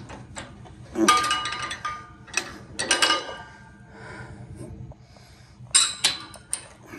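Metal hook and pin clinking and rattling against the steel rail of a hay trailer, in three clusters: about a second in, around three seconds, and near six seconds. Some clinks ring briefly, over a low steady hum.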